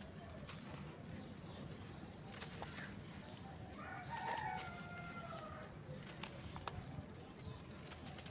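Dry cement-and-sand blocks crumbled by hand into loose powder: a faint gritty crunching and sifting with scattered small cracks. About four seconds in, a rooster crows once in the background, lasting about two seconds and louder than the crumbling.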